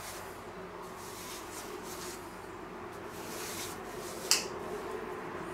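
Hands pressing and spreading pizza dough on a floured wooden board: soft rubbing, patting swishes every second or so, with one sharp click about four seconds in. A steady low hum runs underneath.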